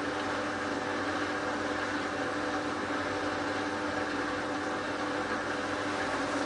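Hotpoint Ultima WT960 washing machine running, its motor and drum giving a steady hum with a constant whirring noise.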